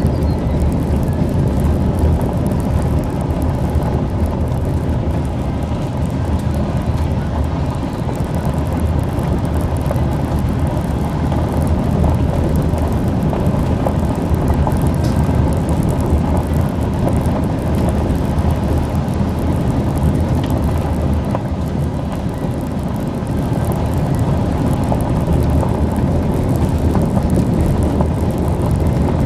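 Car driving on an unsealed gravel road, heard from inside the cabin: a steady low rumble of engine and tyres on the gravel.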